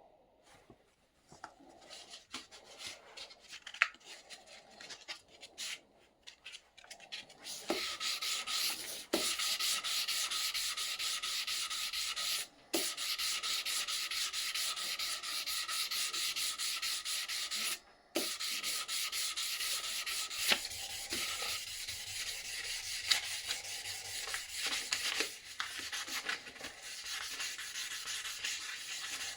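Steady abrasive sanding during the rusty-axe restoration, after several seconds of scattered scrapes and taps.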